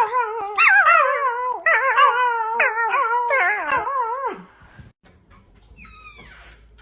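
A dog howling with a wavering pitch, stopping about four seconds in. A faint falling tone follows near the end.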